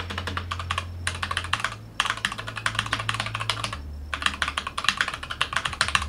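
Keychron K8 aluminium-framed mechanical keyboard with tactile brown switches being typed on fast, a rapid clatter of keystrokes in bursts with two short breaks, about two and four seconds in.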